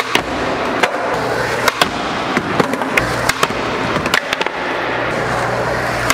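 Skateboard with its trucks tightened all the way, wheels rolling on a concrete floor, with a string of sharp clacks as the board pops, strikes the ledge and lands.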